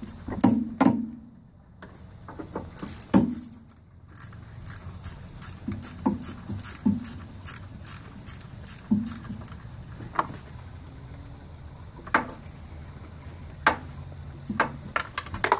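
Metal hand tools clinking and knocking against engine parts as a bolt is refitted by hand: scattered sharp clicks and knocks with runs of small ticks, over a low steady hum.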